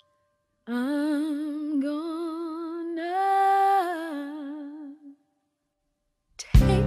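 Unaccompanied singing voice holding a slow, wordless line of long notes with wide vibrato for about four seconds. Near the end the full backing music comes in suddenly with a loud hit.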